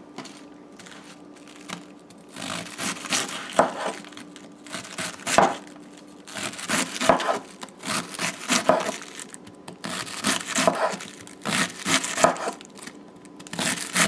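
Knife shredding raw cabbage on a wooden cutting board: the blade slicing through the leaves and knocking on the board in uneven runs of quick strokes, starting about two seconds in.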